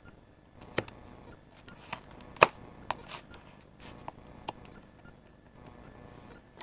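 Knife blade cutting into a thin wooden fruit-crate board: a scattered series of sharp clicks and small cracks as the wood gives, the loudest about two and a half seconds in.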